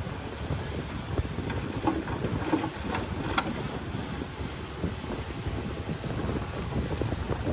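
Heavy earthmoving machinery running with a low rumble, wind buffeting the microphone, and a few short knocks between about two and three and a half seconds in.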